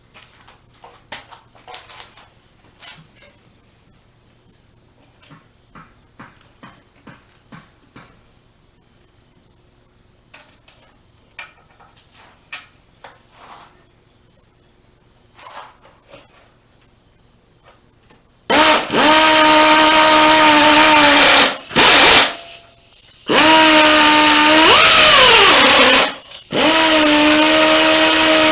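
Crickets chirping steadily with a few faint clinks of tools. About two-thirds of the way through, a power drill starts running loud and runs in several bursts of two to three seconds, its pitch dipping and rising once. It is driving in the bolts that hold a new engine onto a log splitter.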